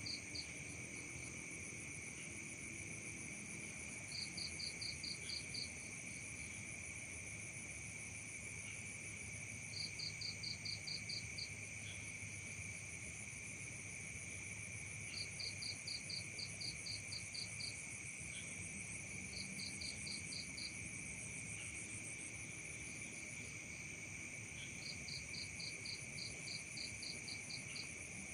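Night chorus of crickets and other insects trilling steadily at several pitches, with a higher chirping call in runs of about seven quick pulses that repeats every five seconds or so.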